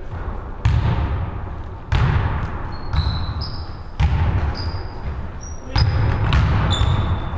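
A basketball bouncing on a wooden gym floor, four heavy thuds a second or two apart, each ringing on in the large hall. Short high sneaker squeaks are heard between them.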